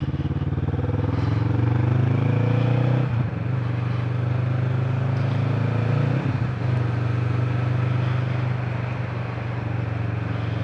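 Motorcycle engine accelerating through the gears: the engine note climbs, breaks at a gear change about three seconds in, climbs again, breaks at a second change about six seconds in, then holds steady at cruising speed.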